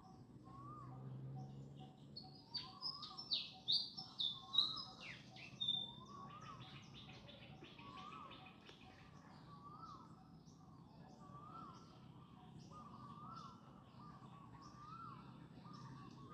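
Birds calling: a quick run of loud, high, falling chirps a few seconds in, ending in a rapid trill, over a softer rising-and-falling call that repeats about once a second.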